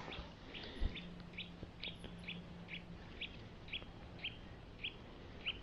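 A small bird calling a steady series of short, high chirps, about two a second. There is a soft low thump about a second in.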